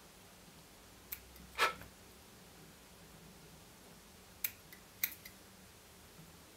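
A handful of short, light clicks from small fly-tying scissors working at the deer-hair wing, the loudest about one and a half seconds in, over a faint steady hum.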